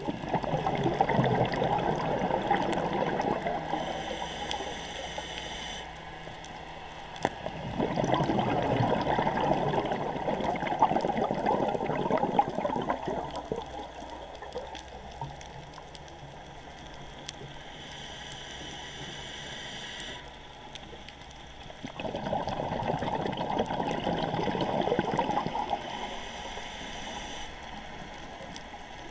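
Scuba diver's breathing heard underwater: three long bursts of exhaled bubbles gurgling past the camera, starting near the beginning, about eight seconds in and about twenty-two seconds in, with quieter stretches of faint regulator hiss between them.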